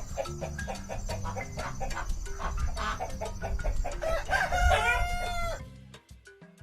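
Chickens clucking in quick repeated notes, then a rooster crowing about four seconds in, cut off abruptly near the end, over background music.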